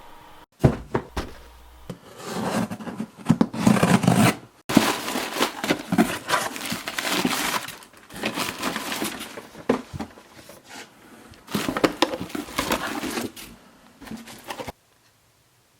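Packaging rustling and crinkling as it is handled, in irregular bursts with knocks and clicks; it cuts off abruptly near the end.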